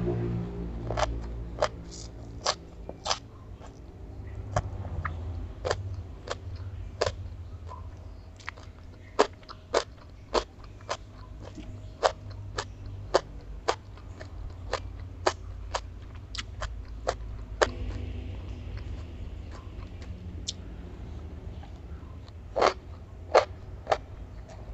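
Close-miked chewing of crunchy stir-fried bean sprouts: sharp crunches at an irregular pace of about one or two a second.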